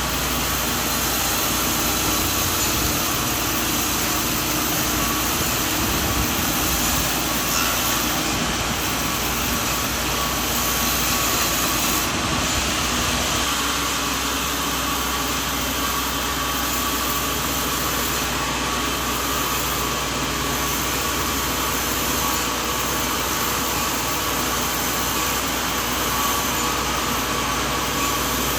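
Sawmill running: a steady mechanical noise over a low engine hum. The lower part of the sound drops slightly about 13 seconds in.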